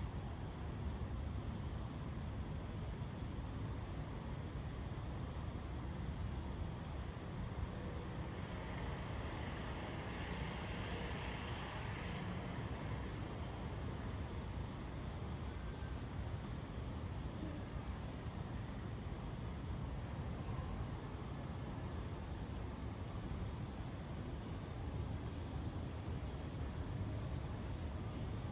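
Crickets trilling in a steady, fast-pulsing high note that breaks off briefly twice, over a low, even rumble of street ambience.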